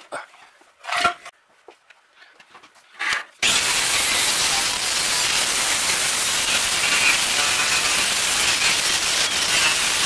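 A few light clinks of tools on metal, then about three and a half seconds in a DeWalt angle grinder cuts in and runs steadily against the steel firewall: a loud hissing grind with a high, slightly wavering motor whine over it, taking the old finish off the sheet metal.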